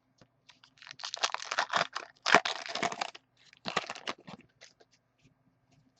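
Foil wrapper of a trading-card pack being torn open and crumpled, a dense crinkling crackle that peaks about two seconds in, with a shorter crinkle a little later.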